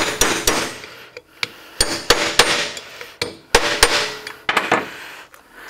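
Carpenter's hammer striking a metal drift to knock a bearing race out of a Toyota Land Cruiser 60 Series rear wheel hub: about a dozen sharp metallic strikes with a short ring, in irregular groups as the drift is moved side to side so the race doesn't cock on an angle.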